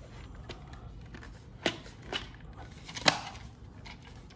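Handling noise from the mattress cleaner as packing tape is removed: three sharp clicks or knocks, the loudest about three seconds in, with a short rasp around the first two.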